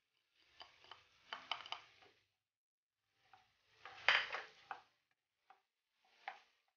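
A spoon scraping and tapping minced garlic out of a small dish into a nonstick wok, then a spatula stirring the garlic in melted butter, scraping and knocking against the pan, loudest about four seconds in, with a couple of light knocks near the end. No sizzle stands out.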